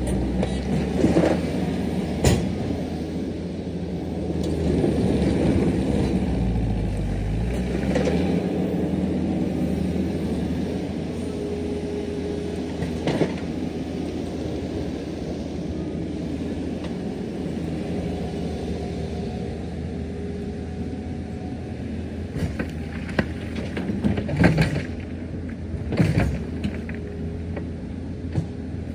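Diesel engine of earth-moving machinery running under work, its pitch dipping and coming back up once, with occasional metallic clanks.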